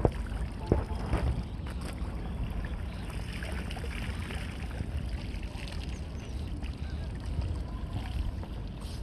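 Low, steady rumble of wind on the microphone, with a sharp click about a second in and a few faint high chirps in the middle.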